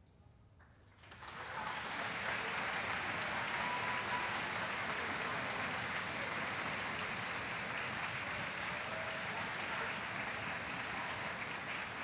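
Large audience applauding a choir's performance; the clapping breaks out about a second in after a brief hush and keeps up steadily.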